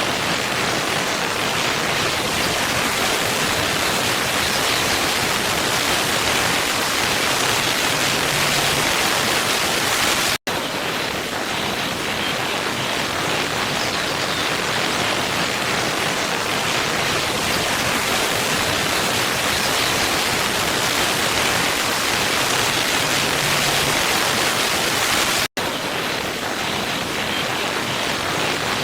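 Steady rush of a waterfall, an even noise of falling water with no changes, cutting out for an instant twice, about ten seconds in and again about twenty-five seconds in, where the looped recording restarts.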